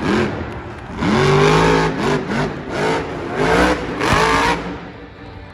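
Grave Digger monster truck's engine revving hard in repeated bursts, its pitch climbing and falling several times as the truck turns in the dirt.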